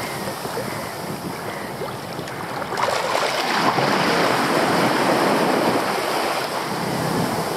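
Small sea waves lapping and breaking in shallow water, with wind on the microphone; the water noise grows louder about three seconds in.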